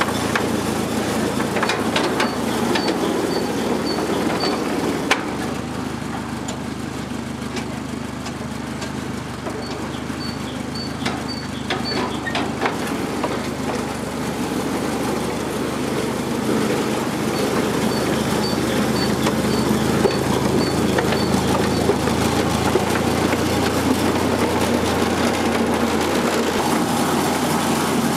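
The BMC A-series four-cylinder petrol engine of a small 10¼-inch gauge locomotive running steadily as the locomotive moves slowly along the track. Scattered clicks and knocks from the running gear and rails come through in the first half.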